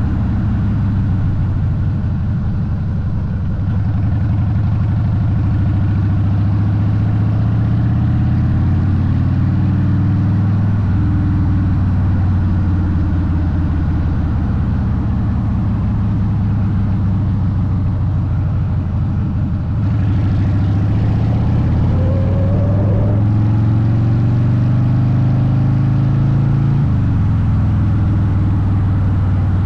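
Harley-Davidson Softail Deuce V-twin through Vance & Hines exhaust pipes, running under way at road speed, its note shifting with the throttle a few times. A rise in rushing hiss about twenty seconds in.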